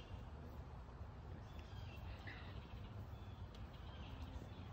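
Quiet outdoor ambience: a faint low rumble of wind and microphone handling, with a few faint bird chirps.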